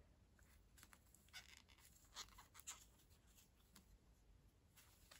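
Near silence, with a few faint soft ticks and rustles of yarn being worked on a crochet hook, about a second and a half in and twice more a little after two seconds.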